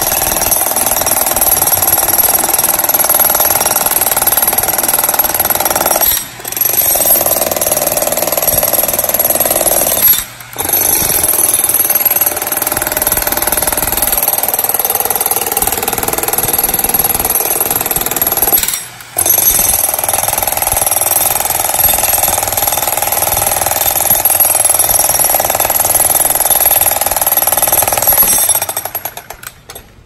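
Jackhammer with a chisel bit hammering steadily into a fibre-reinforced concrete slab, pausing briefly three times and stopping near the end. The slab only powders at the surface and does not crack.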